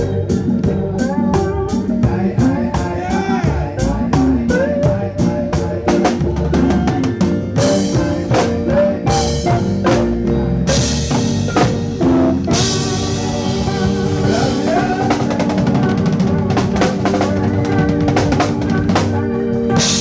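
Live reggae band playing: drum kit with snare, bass drum and rimshots driving the rhythm, with bass and guitar under a male lead vocal. Cymbal crashes thicken the sound through the middle.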